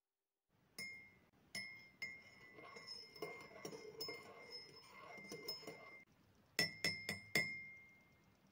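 A teaspoon stirring in a teacup: a couple of single clinks, then several seconds of continuous clinking against the sides, then three sharper clinks near the end, each with a short ringing tone.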